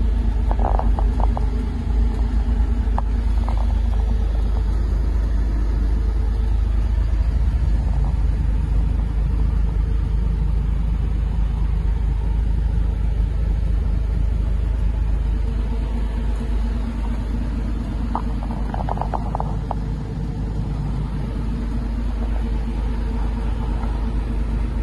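Forklift engine idling steadily, a low rumble heard from inside the cab, with a few light clicks about a second in and again near the end.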